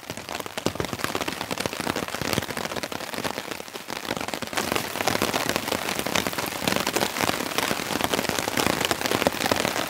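Steady rain falling on a nylon tent fly and tarp: a dense, even hiss made of many separate drop hits, growing a little louder about halfway through.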